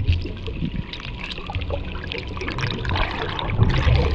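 Water rushing and bubbling around an underwater camera as a spearfisher swims, a low rumble with crackling bubbles that grows louder about three seconds in as the camera nears the surface.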